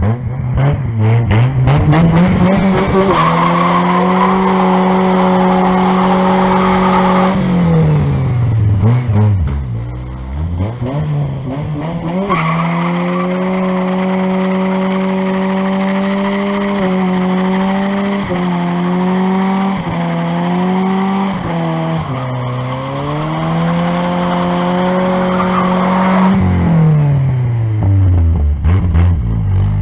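2000 Pontiac Sunfire's four-cylinder engine revved hard and held high and steady while its tyres spin in a smoky burnout. The revs drop about 8 seconds in, climb again about 12 seconds in and hold until they fall away near the end.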